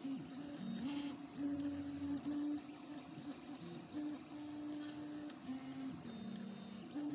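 Stepper motors of a homemade 3D printer working as a pen plotter, whining in short steady tones that jump between a few pitches as the pen head moves from stroke to stroke. A short hiss comes about a second in.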